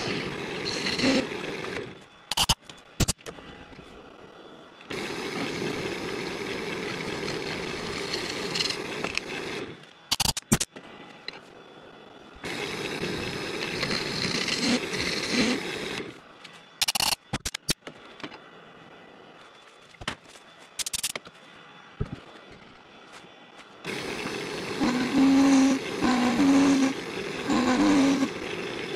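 Wood lathe spinning a melted-crayon vase blank while a hollowing tool scrapes out its inside. The cutting comes and goes in several stretches, with quieter gaps between them that hold a few sharp clicks.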